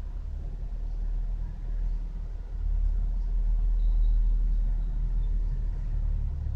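A low rumble that grows louder about two and a half seconds in, is loudest in the middle, and eases off toward the end.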